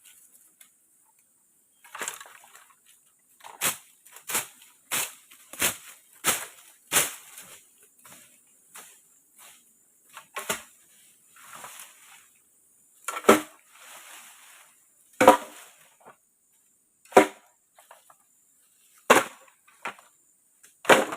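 Sharp chopping or knocking strikes of a tool on wood: a quick run of about one a second and a half, then single, heavier strikes every one to two seconds.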